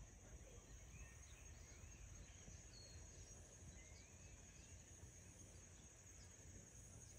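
Faint outdoor ambience: a steady high-pitched insect chorus, with a few faint bird chirps in the middle.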